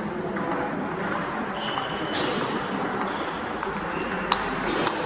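Table tennis rally: the ball ticking off the bats and the table in scattered clicks, with one sharper click about four seconds in, over the murmur of a busy sports hall.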